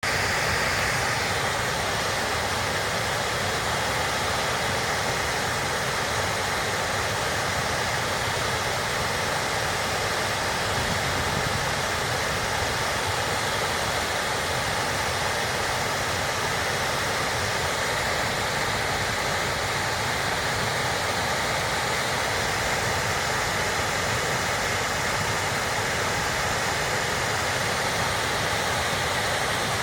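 River water pouring over a concrete dam: a steady, loud rush of falling water.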